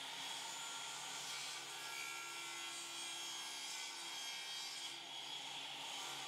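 Small table saw running while its blade cuts through a wooden post cap held in a jig, sawing a bevel along one edge with a steady sound.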